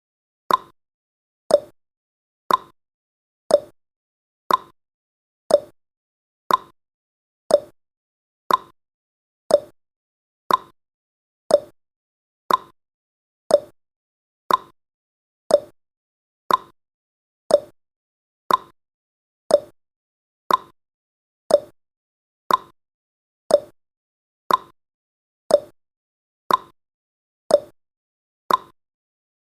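Clock ticking sound effect of a countdown timer: one sharp tick about every second, alternating between a higher and a lower tick, tick-tock.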